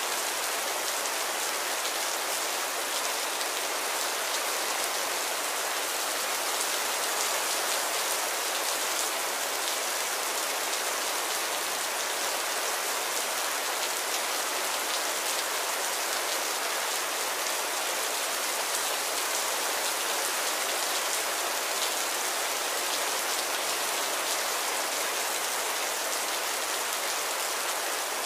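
Steady rain falling on a puddle: an even hiss dotted with the ticks of single drops hitting the water.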